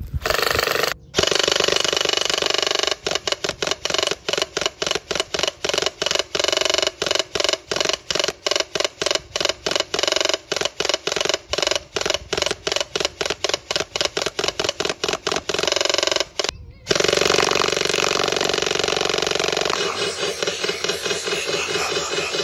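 Airsoft electric gun (AEG) firing long full-auto strings at a watermelon: a fast mechanical rattle. It breaks briefly about a second in and again about sixteen seconds in, then carries on with a changed sound.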